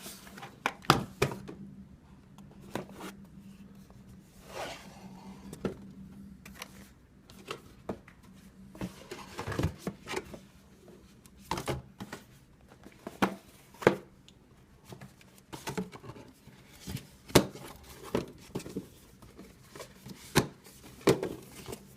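Cardboard box and plastic packaging being handled and pulled apart while parts are taken out: scattered knocks, clicks and short rustles. A faint steady low hum runs underneath.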